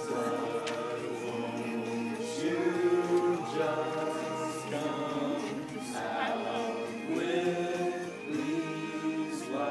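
A group of young men singing a song together, several male voices at once.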